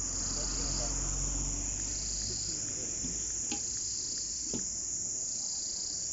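Insects chirring continuously in a high-pitched band that swells and eases about every two seconds, with two faint knocks in the middle.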